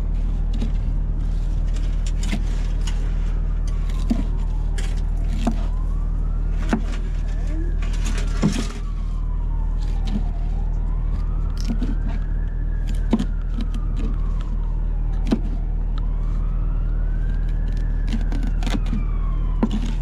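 A knife chopping pink salmon into bait chunks on a wooden cutting board, a sharp chop every second or two at irregular intervals, over a steady low machine hum. A siren wails slowly up and down, rising and falling about every five seconds.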